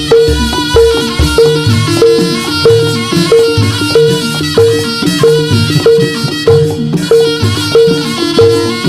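Javanese jaranan music with no singing: struck metal-keyed gamelan percussion and drums, a high struck note repeating steadily about one and a half times a second over lower pitched notes.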